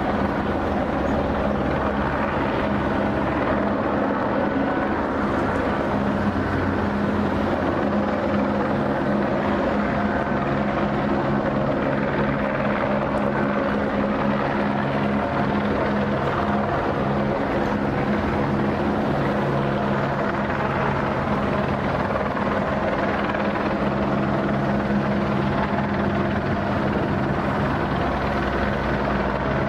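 A steady engine drone with a constant low hum that holds the same pitch throughout, over a rushing noise.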